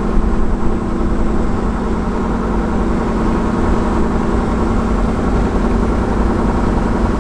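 Steady engine drone and road rumble of a 1999 Toyota Tacoma with the 3.4 L V6 cruising at about 50 mph, heard inside the cab.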